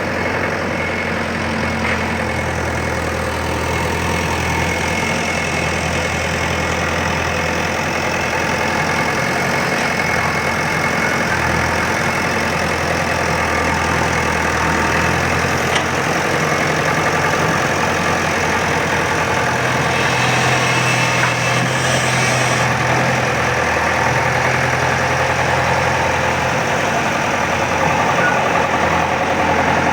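Diesel engine of an earthmoving machine running steadily, its note shifting for a few seconds about two-thirds of the way through.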